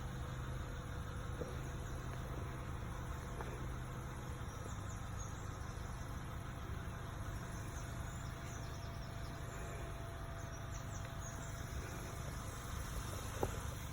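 Steady low hum of a vehicle engine idling, with faint short high-pitched chirps and one sharp click near the end.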